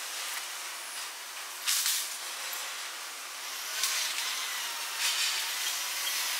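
Shipyard ambience played back at four times speed: a steady hiss with several short, louder bursts of hissing.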